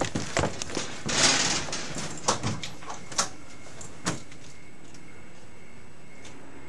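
Quick footsteps, then a screen door being pulled open and knocked with a rush of noise, followed by a few clicks and knocks of a door knob being handled. After about four seconds only a steady hiss remains.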